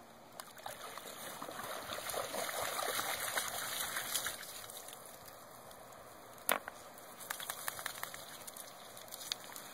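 A dog splashing through shallow water, the water noise strongest for the first four seconds as it wades out, then quieter. About six and a half seconds in comes one sharp knock, followed by a scatter of lighter clicks as it moves onto the stones.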